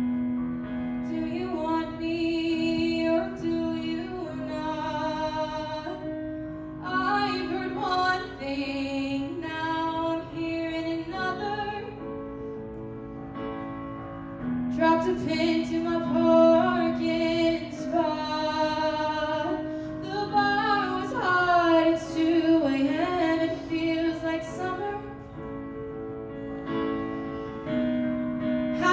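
A young female singer singing a song while accompanying herself with chords on a digital piano. The voice pauses briefly twice while the piano carries on.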